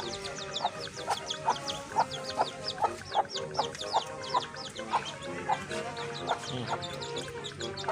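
Many chicks peeping in quick, high, falling chirps over background music.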